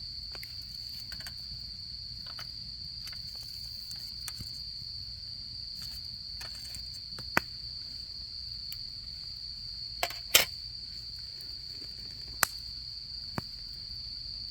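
Autumn crickets trilling in one steady high-pitched tone, over a campfire crackling with several sharp pops, the loudest about ten seconds in.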